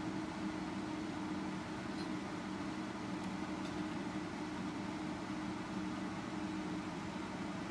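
Steady hum and hiss from running bench electronic test equipment. A tone near 300 Hz holds throughout, and a lower tone drops out for a few seconds mid-way, then returns.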